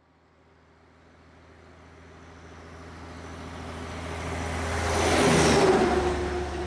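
A heavy vehicle approaching and passing: a low engine hum grows steadily louder for about five seconds, peaks with a rush of noise as its pitch drops slightly, then carries on steady.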